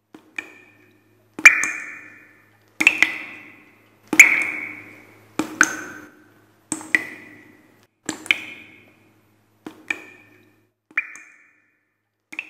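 A run of about ten struck, ringing pings from an outro sound effect, one roughly every second and a half, each dying away over about a second. They grow fainter towards the end.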